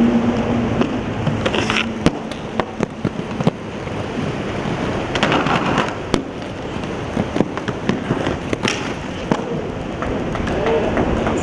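Skateboard wheels rolling over stone paving with a steady rough rumble, broken by many sharp clacks and a few louder cracks of the board hitting the ground.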